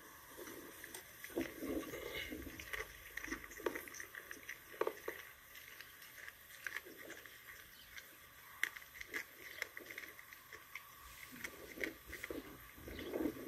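A dog chewing on a whole rabbit held in its jaws, with irregular crunches and clicks.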